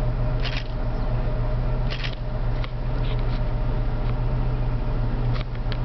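A vehicle's engine idling steadily, with a few short rustles and clicks from handling inside the vehicle.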